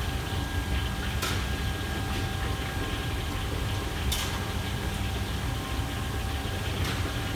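Steady low roar of a commercial kitchen's gas wok range and extraction hood, with a faint steady whine through it. A utensil scrapes or taps against the wok three times: about a second in, around four seconds and near the end.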